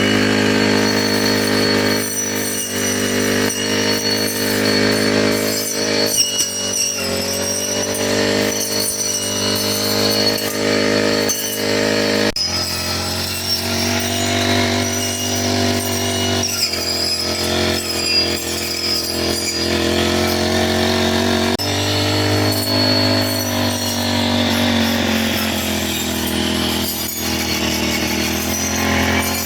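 Four-stroke brush cutter engine running at high speed while cutting grass, its pitch rising and falling as the throttle and load change. There is an abrupt jump in the sound about twelve seconds in.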